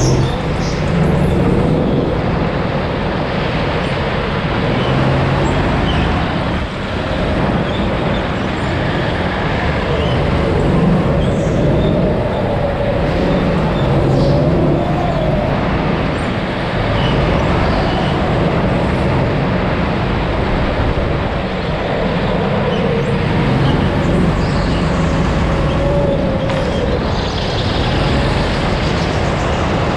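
Go-kart engine heard onboard, running hard under a steady rush of noise, its pitch rising and falling again and again as it revs up and drops back.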